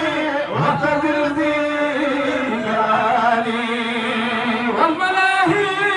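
Men's voices chanting an Arabic Sufi zikr, with long drawn-out notes that bend in pitch; a new phrase rises in about five seconds in.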